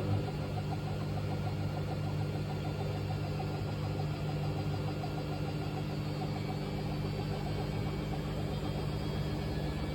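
Washing machine running with an unbalanced load: a steady low drone with a rough, rattly edge that holds at an even level.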